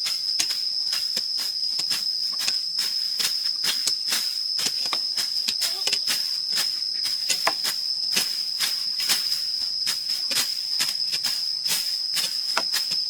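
A steady high-pitched insect drone, with many irregular sharp clicks and snaps over it.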